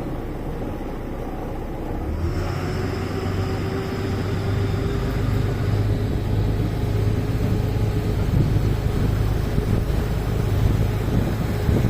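Steady low rumble of a running motor, growing louder about two seconds in.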